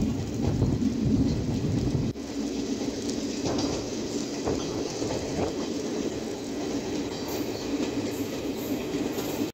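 Passenger train coaches running along the track, heard from on board: a steady rumble and rattle, with a brief sudden drop about two seconds in.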